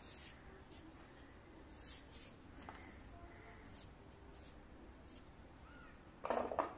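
Sweet pumpkin being sliced and pared against the edge of a boti blade: a series of short, faint, scratchy scraping strokes at irregular intervals, about one or two a second.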